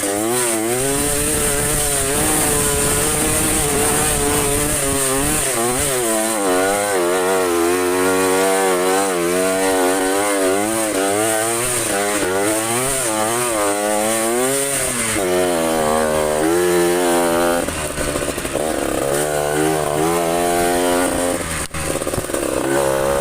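Trail motorcycle engine revving up and down over and over, its pitch climbing and dropping every second or so as the throttle is worked. It settles into a steadier note past the middle, with a short drop near the end.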